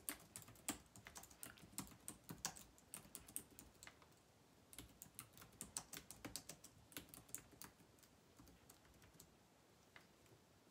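Quiet typing on a computer keyboard: quick, irregular key clicks in two runs of a few seconds each, thinning out to a few scattered clicks near the end.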